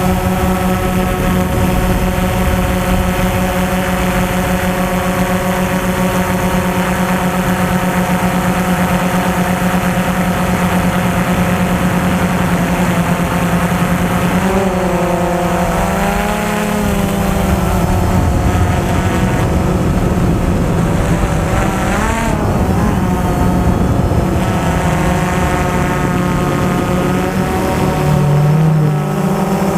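DJI Phantom 2 quadcopter's motors and propellers running with a steady, loud whine, the pitch wavering briefly twice in the middle as the motors change speed, over a low rumble of strong wind.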